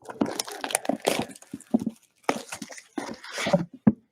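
Plastic shrink wrap crinkling and tearing in irregular crackles as a sealed trading-card box is unwrapped.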